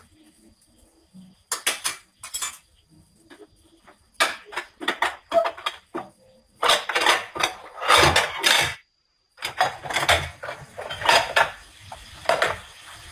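Kitchenware clattering: dishes and utensils being handled and set down on a counter, in repeated bursts of knocks and clinks. The audio cuts out completely for about half a second partway through.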